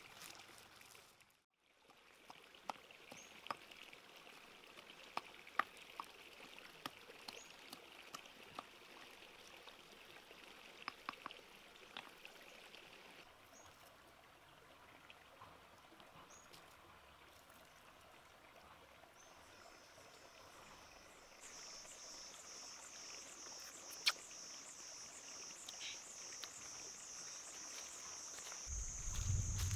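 Faint outdoor ambience with scattered small clicks and taps. From about two-thirds of the way through, an insect chirps steadily in a fast even pulse, and a low rumble comes in right at the end.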